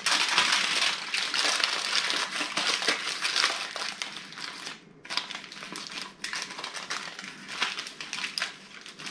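Aluminium foil crinkling as it is folded and crimped by hand into a sealed boat around a trout, with a short pause about halfway through.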